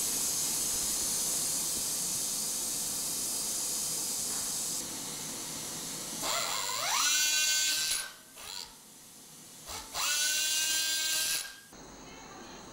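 A surgical power drill spinning up twice, each time with a whine that rises in pitch and then holds steady for a second or two. Before it comes about six seconds of steady hiss.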